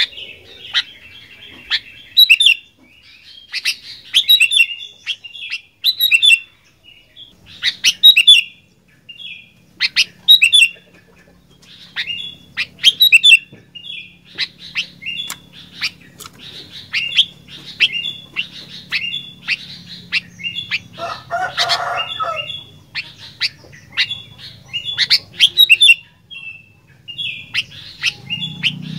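Sooty-headed bulbul (kutilang) singing, repeating short bright chirping phrases about once a second, some of them loud, with a brief harsher call about three quarters of the way through.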